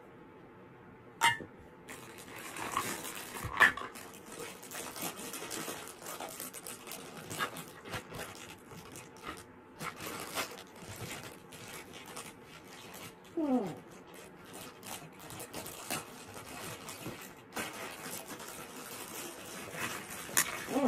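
Plastic toy play food being handled and moved about: ongoing rustling, clicking and light knocks, with a sharp click about a second in and a short falling tone about two-thirds of the way through.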